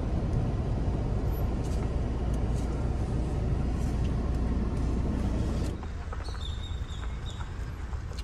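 Steady low rumble of a car moving slowly, heard from inside the cabin. About six seconds in it drops away to quieter outdoor sound with a brief high whine.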